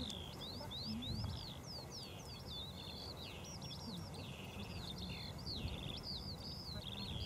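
A songbird singing continuously in quick, varied, high-pitched warbling phrases, over a steady low background rumble.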